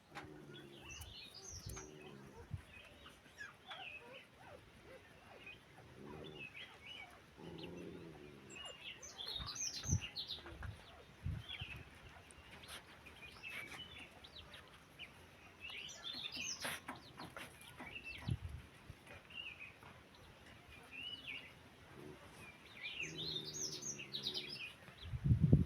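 Birds chirping in short, scattered calls. A few brief low calls and soft thumps come in between.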